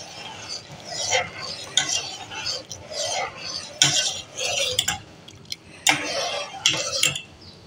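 A slotted metal spoon stirs sugar syrup cooking in a stainless steel pot, in a series of irregular strokes against the pot with occasional clinks.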